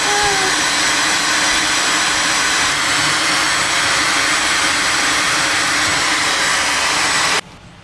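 A loud, steady rushing noise from a small motorised appliance, switched off suddenly about seven and a half seconds in.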